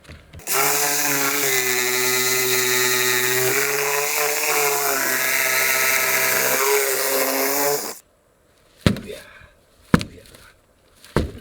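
Power saw running at full speed while cutting through the building's wooden wall studs, its pitch shifting slightly twice as it bites, then stopping abruptly about eight seconds in. Three sharp knocks follow.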